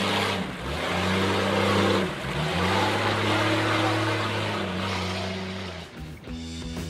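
Jeep Cherokee engine revving as it drives through a deep mud pit, its note rising and falling with the throttle and dipping briefly twice. Near the end the engine fades and guitar music starts.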